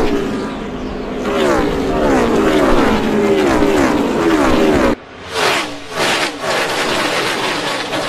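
NASCAR stock-car V8 engines running at high revs, their pitch rising and falling in repeated waves. About five seconds in the sound drops suddenly, then comes back rougher and choppier, with the pitch rising again.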